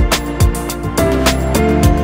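Background music with a steady beat: deep kick drums that drop in pitch, crisp hi-hat and snare hits, and held chords underneath.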